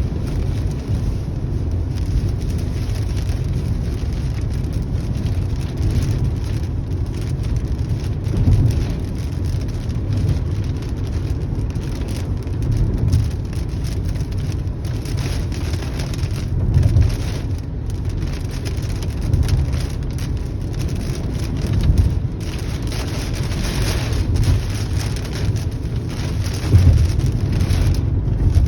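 Steady rain falling in a thunderstorm, with low rumbles of thunder swelling up every few seconds.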